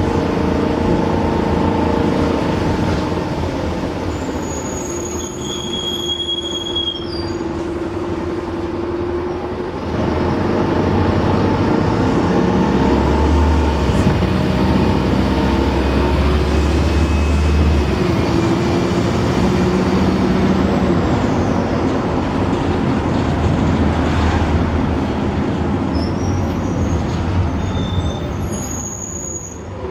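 Optare Solo bus's Mercedes diesel engine and Allison automatic gearbox under way, with a steady whine that shifts in pitch as it changes speed. A thin high turbo whistle comes in about five seconds in and again near the end.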